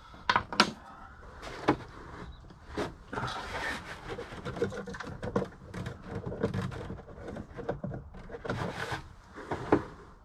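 Irregular clicks and knocks of a hand wrench and metal fittings while a 10 mm nut is worked loose on a Lotus Esprit's headlight pod mechanism, with sharper knocks near the start and near the end.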